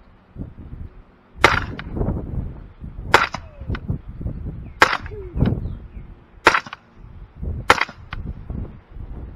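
Five suppressed shots from an AR-15-style rifle, fired singly about a second and a half apart. Each sharp crack is followed shortly by a fainter knock.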